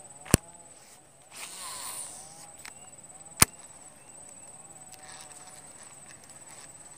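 Fishing reel clicking twice, about three seconds apart, with a brief whirring rush between them, as in a cast: line paying out, then the reel re-engaging. A steady high insect drone runs under it.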